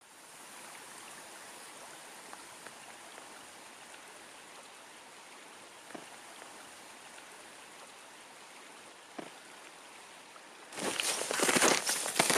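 Faint steady hiss with a couple of small clicks, then about eleven seconds in, loud crunching footsteps in snow begin.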